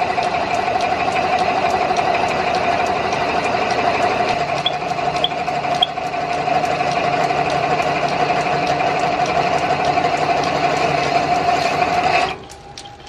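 Metal lathe running while its cutter turns a white oak workpiece, taking off shavings: a loud, steady tone over a rough cutting noise. About twelve seconds in the noise drops away abruptly, leaving faint ticking.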